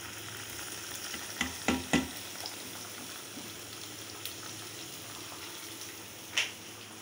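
Chicken pieces with onion, green chillies and coriander sizzling steadily in a non-stick pan on a gas flame while being stirred with a spatula. A few sharp knocks of the spatula on the pan come about a second and a half to two seconds in, and another knock near the end.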